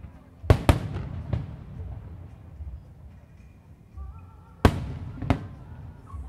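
Aerial firework shells bursting: three sharp bangs in the first second and a half, then two more about four and a half and five seconds in, each trailing off in a lingering echo.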